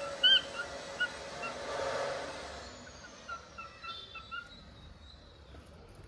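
Pet cockatiel chirping: one loud short chirp just after the start, a few quieter chirps, then a quick run of soft chirps in the middle.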